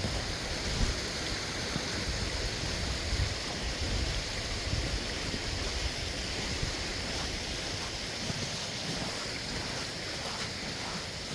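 Steady rushing of a mountain creek running with snowmelt, under an uneven low rumble of wind and handling on the microphone.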